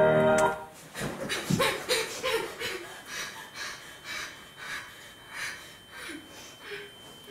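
Music cuts off about half a second in. Then a person pants hard, with quick, heavy breaths and a voiced gasp early on; the breaths slow and fade.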